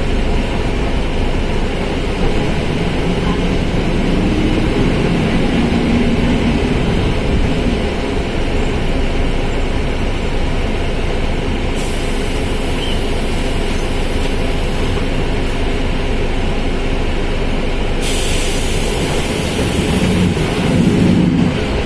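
Volkswagen 17.230 OD front-engined diesel bus running along, a steady engine and drivetrain noise. A hiss joins in about halfway through and grows louder near the end.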